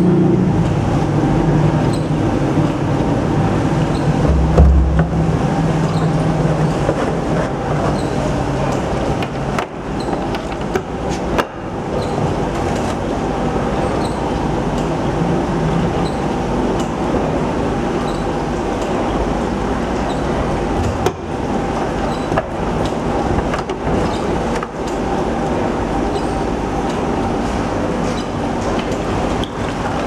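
Steady machinery noise of a workshop: a continuous rumble and hum, with a few sharp clicks.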